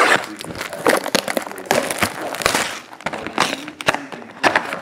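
Clear plastic shrink wrap crinkling and tearing as it is pulled off a cardboard trading-card box, with irregular crackles, clicks and scrapes of the box being handled.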